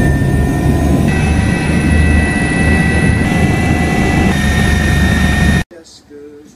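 Small aircraft's engine running loud inside the cabin: a steady low drone with high, even whining tones over it. It cuts off suddenly about five and a half seconds in.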